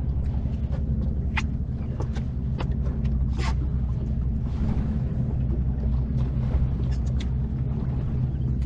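Boat motor running with a steady low hum, with a couple of sharp clicks about a second and three seconds in.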